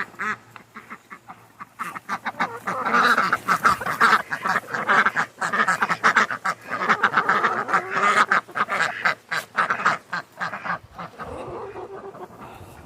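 Several domestic waterfowl calling in a rapid, overlapping run of short quacking calls. The calls grow loud about two seconds in and ease off after about ten seconds.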